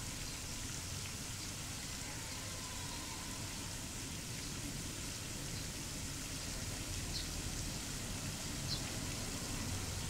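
Steady outdoor background noise with a low rumble underneath and a few faint, short high chirps in the second half.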